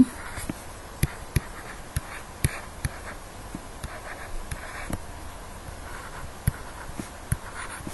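Stylus writing on a tablet PC screen: irregular light clicks and taps with faint scratching as words are handwritten.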